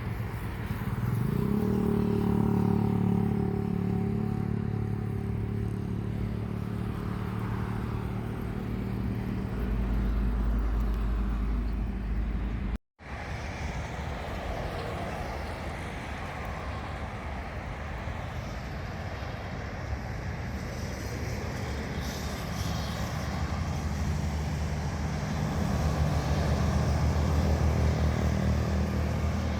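Steady engine noise with a brief pitch rise about a second in. The sound cuts out suddenly about 13 seconds in, then returns as a broad rumble that grows louder near the end.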